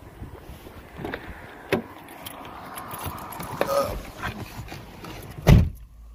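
A Nissan Skyline sedan's driver door being opened and shut. There is a sharp latch click a little under two seconds in and rustling as someone climbs into the seat. The door then closes with a heavy thud about five and a half seconds in, the loudest sound, after which the outside sound is shut out.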